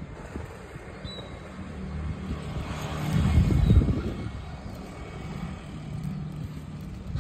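Road traffic: a steady low engine hum, with one vehicle growing louder and passing about three to four seconds in.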